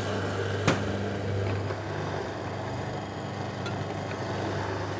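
Electric juicer's motor running steadily with a low hum as celeriac is pushed down the feed chute and pressed, with one short knock less than a second in.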